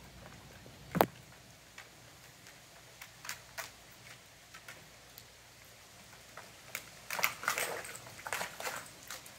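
Scattered light clicks and scuffs of dogs' paws and claws moving about a concrete pool deck, with a sharp knock about a second in and a busier patch of scuffing and scrabbling near the end.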